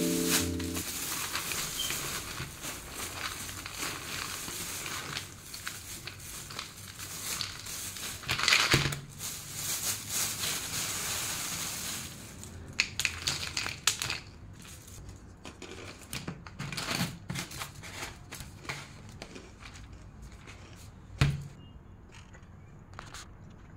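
Plastic bag crinkling as dry fried snack sticks are poured out of it into a plastic jar, the pieces rattling and crunching against the jar. After about 12 s the sound thins to scattered crinkles and light knocks, with one louder knock about 21 s in.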